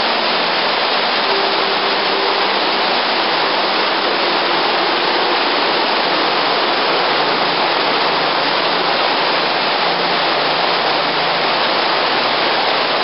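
Steady, loud rushing noise, even and unbroken throughout, like running water or air, with a faint low hum.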